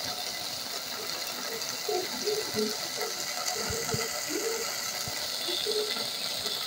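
Wet fry beef stew sizzling and bubbling in a steel pot on a gas burner: a steady hiss with many small scattered pops.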